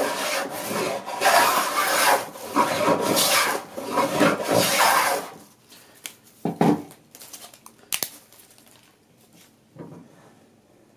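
Vintage Bailey No. 7 jointer plane with a corrugated sole and its original Sweetheart iron taking long, thick shavings along a board edge: several long rasping strokes over the first five seconds. Then the planing stops and a few light knocks follow as the plane is handled.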